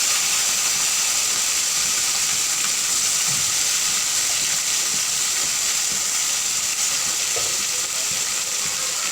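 Raw chicken pieces sizzling steadily in hot oil in a pan, just after being added.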